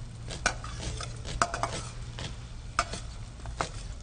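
Onions sizzling as they sauté in butter and oil in a frying pan, stirred with a metal spatula, with scattered sharp clicks of the spatula on the pan and the knife on a wooden cutting board.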